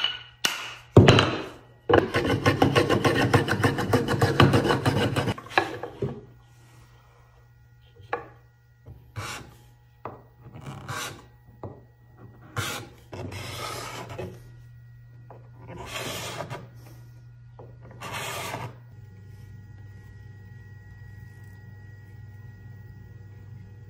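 Japanese kanna (wooden hand plane) being adjusted by hand: a couple of sharp hammer taps on the plane, then about three seconds of fast rasping on wood, then scattered shorter scraping and rubbing strokes. A faint steady low hum runs underneath.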